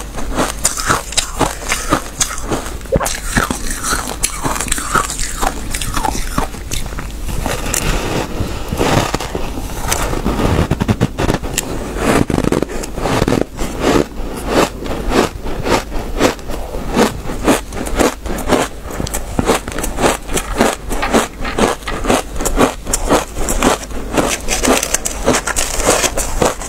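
Close-miked chewing of compacted shaved-ice chunks: a dense stream of crisp, squeaky crunches, several a second.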